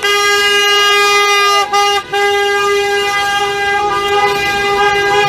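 Car horns from a passing convoy sounding long, near-continuous blasts, broken briefly twice about two seconds in.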